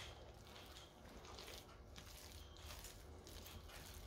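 Faint, repeated strokes of a spoon stirring thick, sticky fruit cake batter of boiled dried fruit, egg and flour in a metal saucepan.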